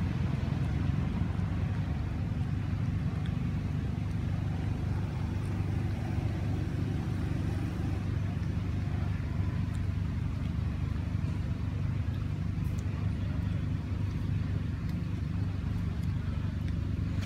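Steady low hum of a running motor.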